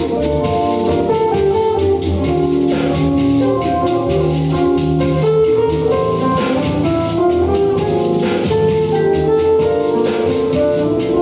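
Live Cuban son band playing at a steady beat, with upright bass, guitar, keyboard, drums and congas, and a metal güiro scraped in rhythm.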